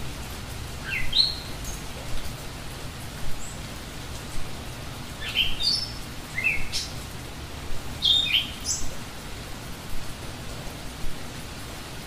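Birds chirping in steady rain after a storm. Short, upward-sweeping chirps come in three clusters: about a second in, from about five to seven seconds in, and again around eight to nine seconds in, over an even hiss of rainfall.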